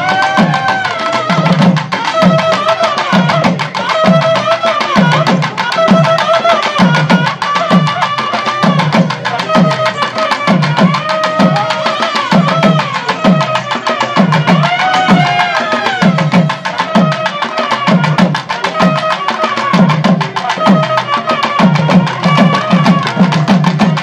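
Nadaswaram playing a loud, wavering, ornamented melody over fast, continuous thavil drumming: the band accompaniment for karakattam dancing.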